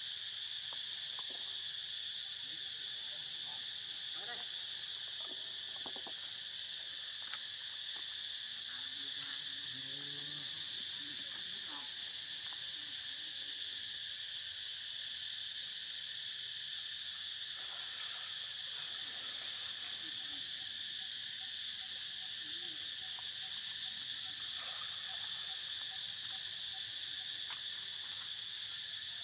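Insect chorus droning steadily at a high pitch, several fixed tones layered together without a break. A few faint soft ticks, and a brief high sweeping call about eleven seconds in.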